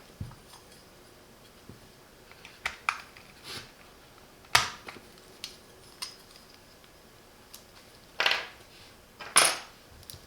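Scattered sharp clicks and scrapes of a switch puller and mechanical keyboard switches on the Keychron Q6 Max, as switches are worked out of and into the keyboard's hot-swap sockets. About eight separate clicks, with the loudest near the end.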